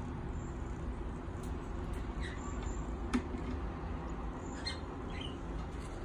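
Days-old cockatiel chicks giving a few faint, short cheeps over a steady low hum, with one sharp tap about three seconds in.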